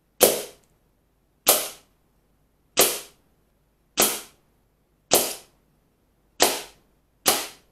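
Weihrauch HW97K .22 underlever air rifle firing seven shots about a second apart, each a sharp crack that dies away quickly, as pellets strike the paper target in its pellet trap.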